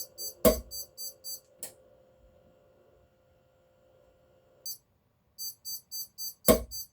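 A torque wrench clicking sharply as it releases, about half a second in and again near the end. Between the clicks an electronic torque readout beeps rapidly at about three high beeps a second, falling silent from about 1.5 to 4.7 seconds in.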